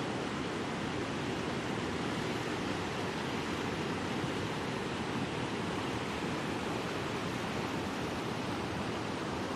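Steady, unbroken rush of water, from heavy rain and flooding.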